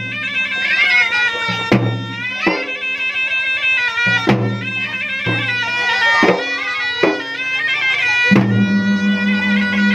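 Traditional Makassar gendang music: drums struck in an irregular pattern about once a second, under a shrill reed pipe playing a wavering, ornamented melody. A low droning note comes in near the end.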